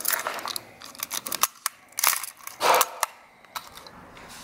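Nikon 35 mm film SLR being handled and worked: a run of small mechanical clicks from the camera's controls, with louder clacks about two seconds in and again just before three seconds.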